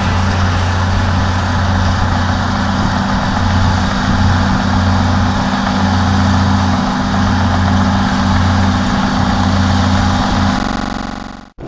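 Crawler tractor's diesel engine running steadily with a deep, even drone. The sound drops away abruptly near the end.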